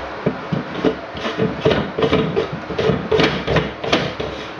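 PVC shower drain parts fitted together by hand: a run of irregular plastic scrapes and clicks, a few a second.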